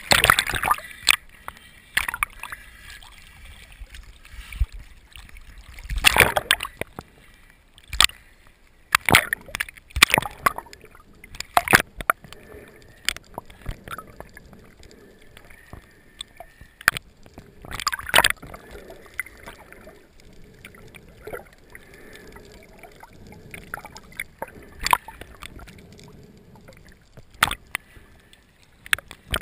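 Water sloshing and splashing around a GoPro in its waterproof housing as it moves at and just below the surface while snorkelling: a low muffled wash with irregular loud splashes every few seconds.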